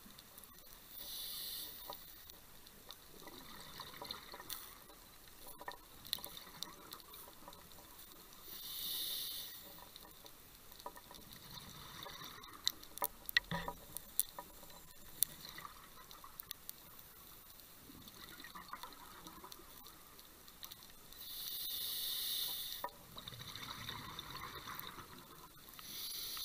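Underwater sound: bursts of scuba regulator exhaust bubbles, each about a second long, three or four times. Between them is a faint crackle, with a cluster of sharp clicks in the middle.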